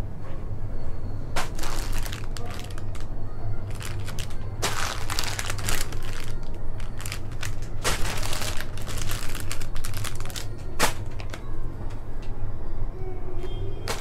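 Crinkling and rustling of merchandise being handled, in several uneven bursts with a sharp click about three-quarters of the way through, over a steady low hum.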